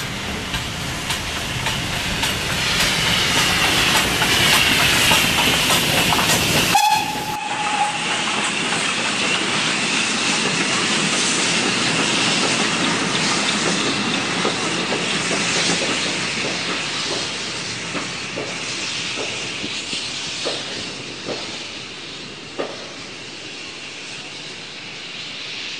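TKt48 steam tank locomotive working a passenger train: steady steam exhaust and hiss that grows louder as it approaches, a short whistle about seven seconds in, then the coaches' wheels clicking over rail joints as the train passes and slowly fades.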